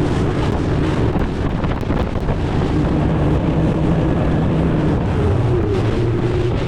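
Motorboat engine running steadily at speed, with wind buffeting the microphone and water rushing past the hull; the engine hum shifts a little in pitch near the end.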